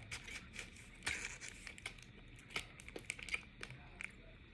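Crinkling and crackling of a Charleston Chew candy wrapper being handled: a scatter of short, light clicks with a denser rustle about a second in.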